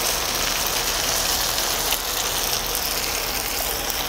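Pork belly, tomahawk pork chops and kimchi sizzling steadily on a large griddle lid over the fire, a continuous hiss with a faint low rumble underneath.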